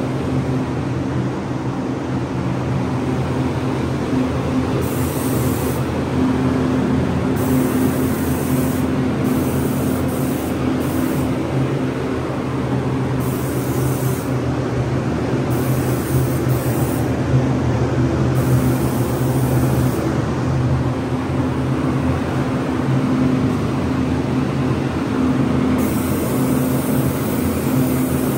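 Paint spray gun laying primer onto a cabinet door in repeated passes: a high hiss that starts and stops many times, over a steady loud hum from the spray equipment.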